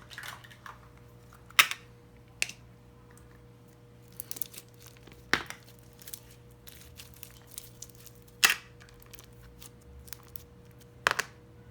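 Textured slime with little blocks worked by hand, giving a scatter of small crackles and about five sharp pops a few seconds apart.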